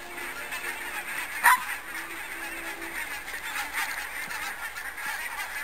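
Flock of wild geese flying overhead, many honking calls overlapping into a steady chorus, with one louder call about a second and a half in.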